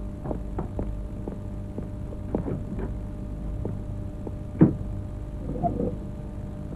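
Steady low electrical hum under scattered light knocks and taps, with one louder knock about four and a half seconds in and a brief faint voice near the end.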